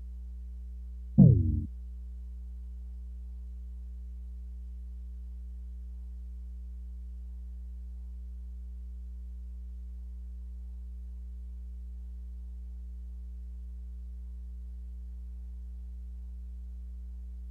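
Steady low electrical hum from the room's microphone and sound system, with one short, loud low thump about a second in.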